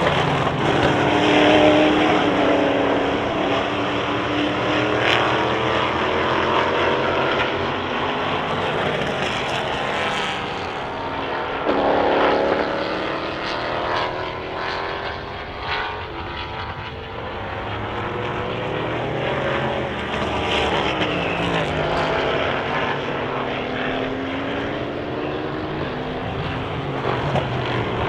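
Several race cars' engines running hard at the same time, passing and overlapping, their pitch rising and falling as they accelerate, shift gears and go by. The loudest pass comes about twelve seconds in.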